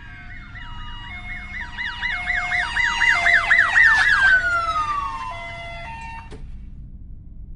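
Several emergency-vehicle sirens sounding together: a fast yelp sweeping up and down a few times a second, a long wail falling in pitch, and a two-tone hi-lo. They grow louder toward the middle, then fade and cut off suddenly about six seconds in, over a steady low rumble.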